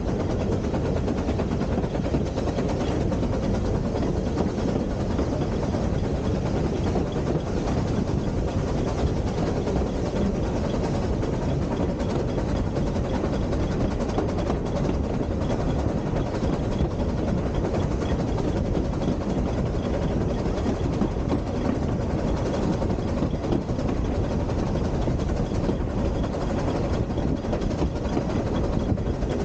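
Narrow-gauge steam train running, heard from beside a carriage window: a steady rumble of the coach on the rails, with wind buffeting the microphone.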